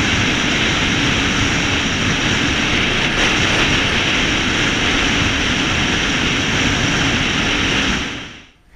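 Steady loud rush of wind and driving noise on a camera mounted outside on the bonnet of a 4WD driving fast along beach sand. It fades out just before the end.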